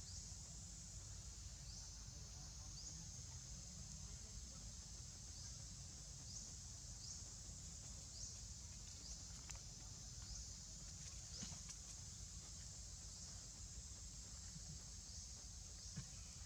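Faint outdoor nature ambience: a steady high-pitched drone with a short chirp repeating about once a second, over a low rumble.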